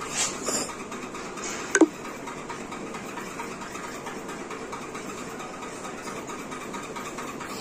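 A steady whirring hum with a faint tone in it, the sound of a running machine in a small room. A little under two seconds in, one short, sharp squeak falls quickly in pitch, the loudest sound here.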